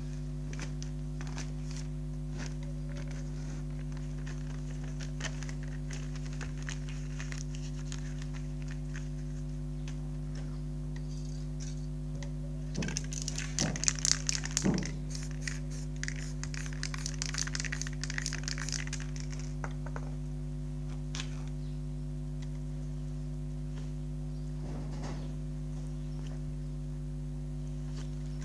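Paper crinkling and crackling as a sheet is worked against a wet spray-painted board, over a steady low hum. About 13 seconds in, a louder stretch of crackle and hiss from the spray paint can, with a fainter hiss for a few seconds after.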